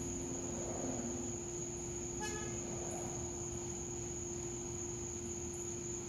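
A single short car-horn toot about two seconds in, over a steady low hum and a steady high-pitched whine.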